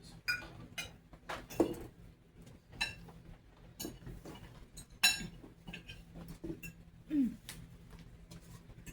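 Cutlery and dishes clinking during a meal: a string of sharp, ringing clinks at uneven intervals, the loudest about five seconds in, with faint murmuring in between.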